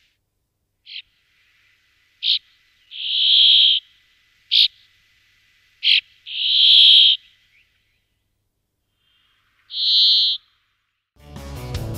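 Brambling calling: short sharp notes alternating with three drawn-out calls of under a second each. Music comes in near the end.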